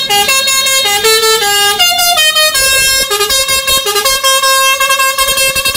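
Multi-tone musical air horn of an Indonesian tour coach (a "telolet" horn) playing a tune of held notes that change pitch every fraction of a second.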